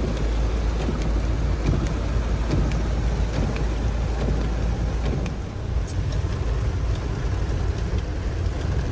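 Steady rushing noise of a rain-swollen arroyo, with a deep low rumble under it and scattered small clicks and splashes.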